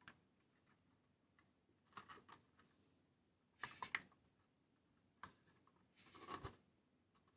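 Faint light clicks and taps of small diecast-kit parts and tools being handled on a work surface, in four short scattered groups.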